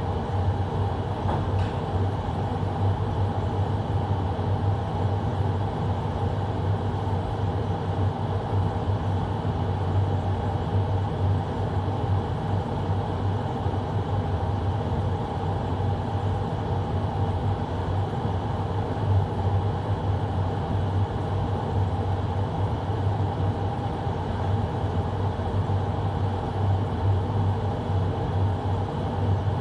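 Carrier air conditioner's indoor air handler running, its blower moving air steadily with a strong low hum and no change in level.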